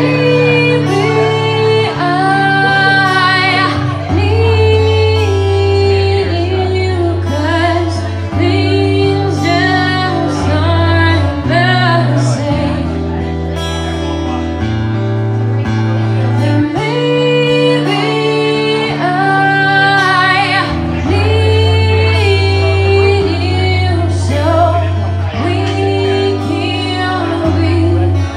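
Acoustic song: a woman singing over acoustic guitar.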